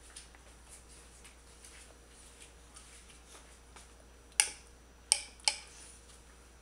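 A small metal-tined toddler fork clicking sharply against a plastic plate three times in the second half, over faint light ticking.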